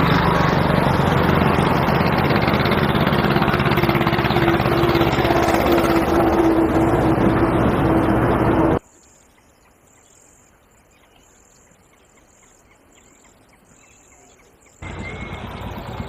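An engine running steadily and loudly with a low hum. It cuts off abruptly about nine seconds in, leaving faint hiss, and a quieter noise of the same kind returns about a second before the end.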